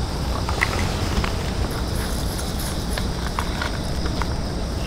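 Wind buffeting the microphone in a steady low rumble, with a few scattered light clicks and knocks.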